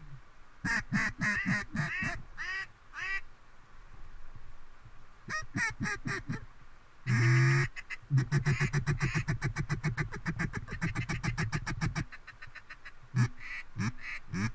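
Haydel's H2 Cajun Cutter double-reed acrylic mallard duck call blown in a calling sequence. It starts with a string of quacks, then gives one long, loud hail note just past the middle. That runs into about four seconds of fast, even feed-chuckle chatter, and a few more quacks come near the end.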